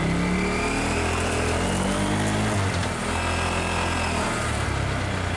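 A vehicle engine running steadily close by, its pitch drifting up and down a little, with a faint whine over it.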